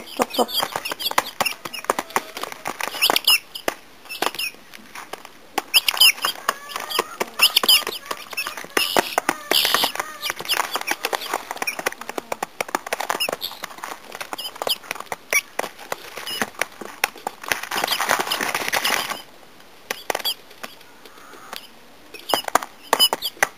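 Guinea fowl keets pecking grain crumble from a hand and a feed pan: rapid sharp taps of beaks on the feed, with high squeaky cheeps now and then. A brief rustling noise comes about three-quarters of the way through.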